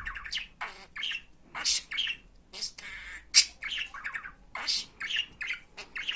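Pet male budgerigar chattering: a quick run of short chirps, squawks and scratchy warbles, the chatter of a talking budgie.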